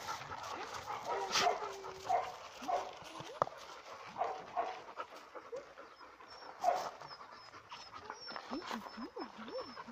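Dogs panting and making short soft whines at close range, with scattered clicks and scuffs.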